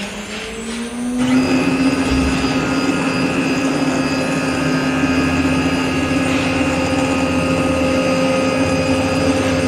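CNC router spindle on an Acctek AKM6090C spinning up. Its whine rises in pitch and settles about a second in to a steady high whine at about 15,000 rpm. From the same moment a louder rushing noise of the bit cutting wood runs with it.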